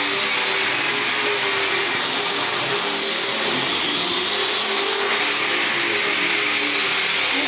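Corded electric angle grinder with an abrasive sanding disc, running steadily as it sands a wooden door frame: a constant motor whine over the hiss of the disc on the wood.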